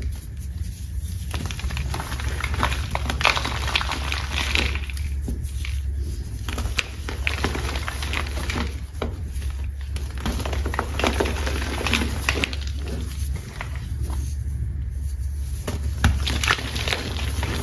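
Soft, dusty chalk being crumbled close to the microphone: crisp crackling and crunching with sharp ticks, in several spells separated by short pauses, over a steady low hum.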